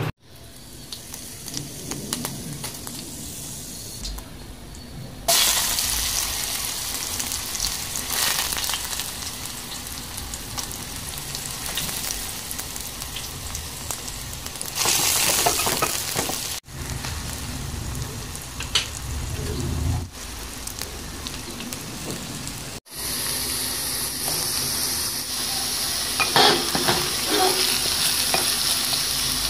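Chopped onions and vegetables sizzling in hot oil in a pan. The sizzle jumps up sharply about five seconds in as the onions go into the oil. Near the end a wooden spatula stirs and scrapes through the vegetables.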